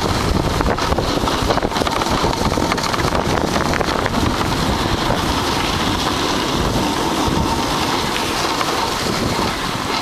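Wind rushing over the microphone while riding a snowboard downhill, mixed with the board sliding and scraping over the snow in a steady hiss.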